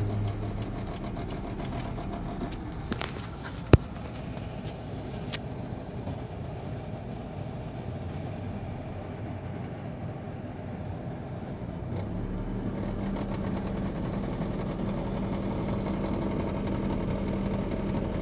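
Cabin noise of a Perodua Myvi being driven: steady engine and road noise with scattered light clicks and a sharp tick about four seconds in. The clicks are the weird noise from the front passenger-side dashboard that shows up only over uneven road. A steady engine hum comes in about twelve seconds in.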